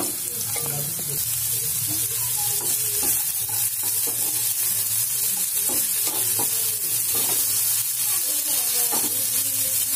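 Strips of potato sizzling in hot mustard oil in a non-stick pan, stirred and turned with a wooden spatula that scrapes and knocks against the pan again and again over a steady frying hiss.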